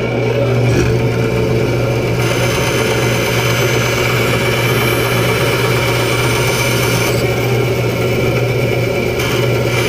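Davis & Wells bandsaw running with a steady motor hum and hiss as a wenge block is fed into the blade for a plane body.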